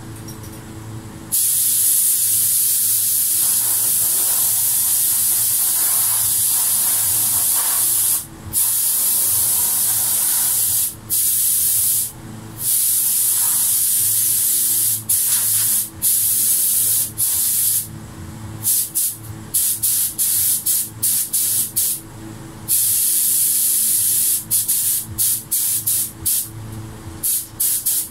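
Gravity-feed air spray gun hissing as it sprays clear topcoat. It starts about a second in with long passes broken by brief trigger releases, then turns into quick, choppy on-off bursts in the second half.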